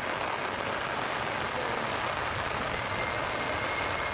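Jet engines of an approaching Boeing 737-700 on final, its CFM56 turbofans heard through a steady rain hiss; a steady high engine whine comes in about three seconds in.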